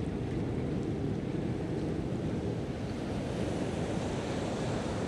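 Steady rush of ocean surf against a rocky shoreline, with wind noise on the microphone.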